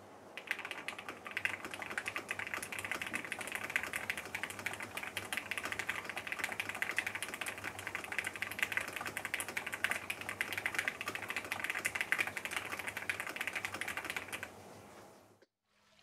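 Continuous fast typing on a custom mechanical keyboard: a Jelly Epoch with a polycarbonate plate, lubed Gateron Ink Black v2 linear switches and PBT keycaps, picked up by a camera's built-in mic. The keystrokes come as a dense, even clatter that stops near the end.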